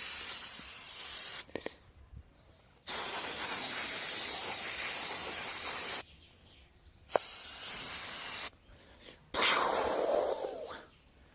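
WD-40 aerosol can spraying onto a bicycle in four bursts, the second about three seconds long, with short pauses between.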